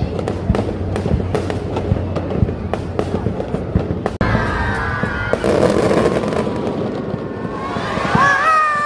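Fireworks bursting overhead, a rapid run of sharp bangs and crackles. About four seconds in the sound changes abruptly to a dense, steady din of bursts, with a pitched sound rising and falling near the end.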